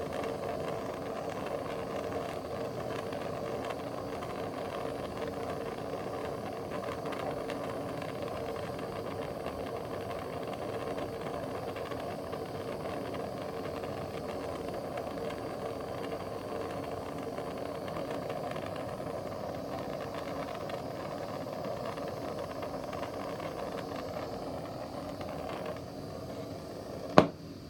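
Soldering torch flame hissing steadily as it heats the joint to make the solder flow. The flame cuts off near the end, followed by a single sharp click.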